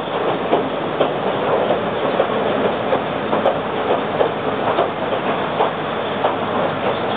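Former Kintetsu 16000 series electric train running, heard from inside the car: a steady rumble of wheels on rails with the clickety-clack of rail joints about once or twice a second.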